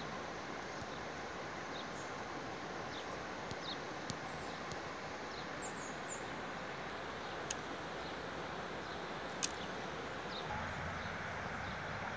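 Outdoor river ambience: a steady rush of flowing water with scattered short, high bird chirps over it. A low rumble joins near the end.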